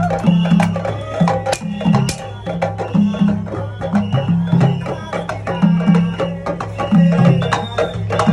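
Music with busy drum percussion over a pulsing bass line.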